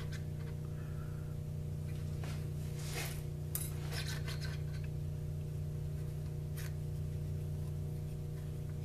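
Steady low hum with a few faint metallic clicks and clinks, about two to four seconds in and once near seven seconds: hands turning a lathe chuck by hand while a dial indicator checks a shaft for runout.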